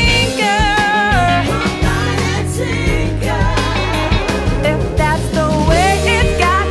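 Blues-rock song with an electric lead guitar playing bent, wavering notes over a bass line and drums.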